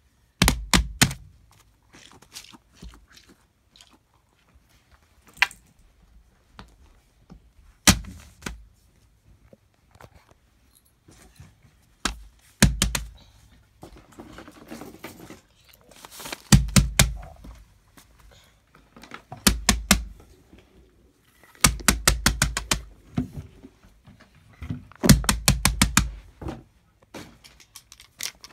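Bursts of sharp clicks and taps, from a few to about a dozen in quick succession, with quiet gaps between: handling noise from plastic fidget toys and the filming phone being moved around.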